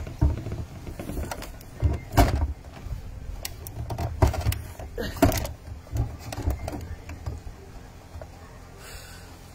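Handling noise from a phone held against clothing: irregular knocks and rustles of fabric rubbing on the microphone over a low rumble, quieter near the end.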